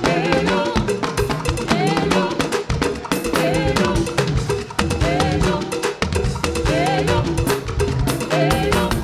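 Live band playing an upbeat praise groove: drum kit with snare and bass drum hitting fast and even, under bass and a pitched melody line.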